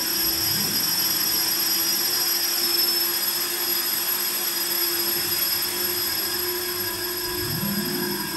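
Ambient synthesizer drone from a Lyra-8 run through a looper, granular processing and reverb: several steady held tones over a hiss. A low sweep rises in pitch about half a second in and another near the end.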